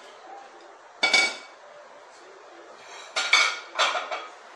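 Metal kitchenware clattering: one sharp clank about a second in, then a quick run of clanks with a short metallic ring between about three and four seconds in.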